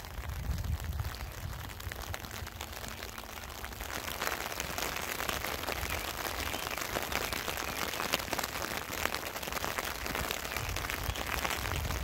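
Rain falling, with many separate drop ticks in a steady hiss; the rain grows louder about four seconds in. A low rumble is mixed in at the start and again near the end.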